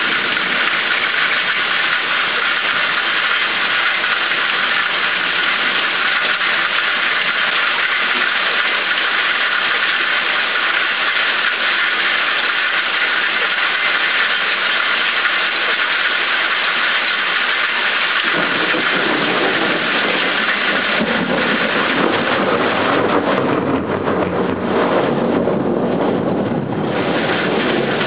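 Steady heavy rain hissing. About two-thirds of the way in, a low rumble of thunder rises underneath the rain and carries on to the end.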